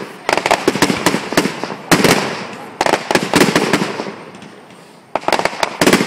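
Fireworks display: rapid volleys of bangs with crackling, dense for about four seconds, then a short lull before another burst of bangs near the end.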